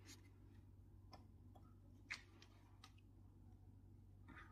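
Near silence with a low steady hum and a few faint, scattered clicks, the clearest about two seconds in.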